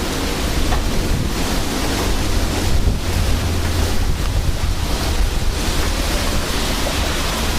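Strong thunderstorm wind rushing steadily and buffeting the camcorder microphone, with a heavy low rumble from the gusts.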